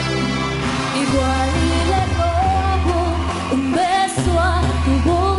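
Live band music: long, steady deep bass notes under a wavering lead melody.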